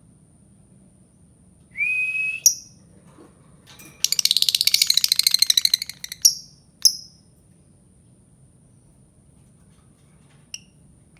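Albino lovebird calling: a short shrill call, a sharp chirp, then a rapid chattering trill of about two seconds, the loudest part, and two more sharp chirps. The last few seconds are quiet apart from a faint click.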